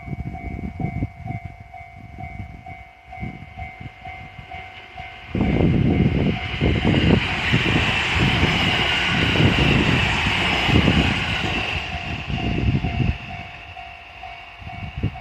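E129 series electric train passing close by: its wheel and running noise comes in suddenly about five seconds in, stays loud for about six seconds, then fades away.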